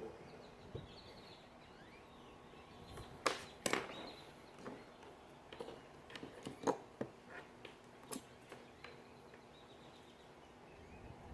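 Scattered small clicks and taps, a few of them sharp, from multimeter probes and wires being handled against the terminals of a 12-volt relay during a continuity test.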